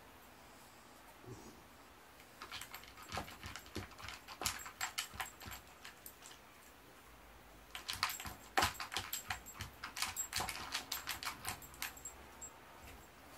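Dog eating dry kibble from a plastic bowl: two runs of quick, irregular crunches and clicks, the first starting about two seconds in and the second about eight seconds in, with a short pause between.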